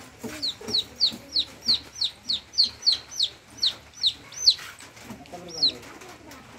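A chicken chick peeping: a rapid run of short, high peeps, about three or four a second, each sliding down in pitch. The peeps stop about four and a half seconds in, with one more a second later.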